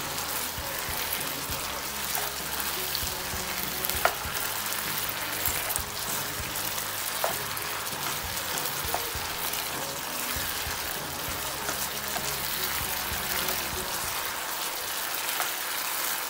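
Pork and spring onions sizzling in a hot pan of oil and sauce while being stirred with a spatula, with the spatula scraping and now and then tapping the pan, one sharp tap about four seconds in.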